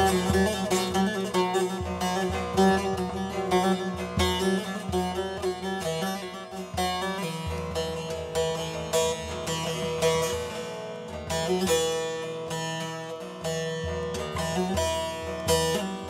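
Bağlama (long-necked Turkish saz) played solo, plucked and strummed in a quick run of notes over steadily ringing open strings: the instrumental opening of a Turkish folk song (türkü).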